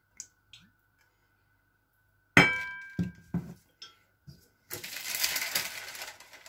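A glass oil bottle is set down hard on a counter with a sharp clink and a short ring, then a few light knocks follow. Near the end comes a rough, noisy rustle lasting about two seconds.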